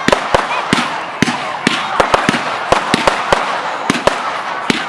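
Professional display fireworks going off in quick succession: about fifteen sharp bangs, three or four a second, over a dense, continuous crackle.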